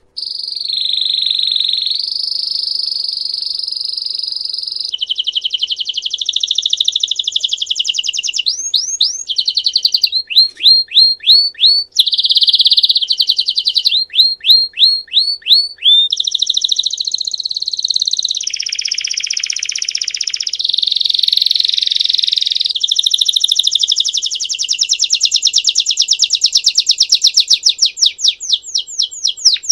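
Belgian canary singing the 'campainha' (bell) song: a continuous chain of fast trills, switching to a new trill every few seconds, including runs of quick falling whistle notes. The song starts abruptly from silence.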